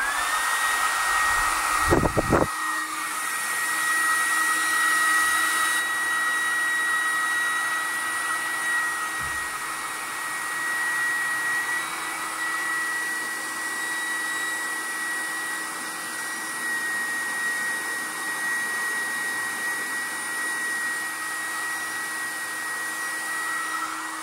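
Deerma DEM-CF30W hair dryer switched on: its whine climbs quickly to a steady high pitch over the rush of air, runs evenly, then falls away as it is switched off near the end. There is a thump about two seconds in.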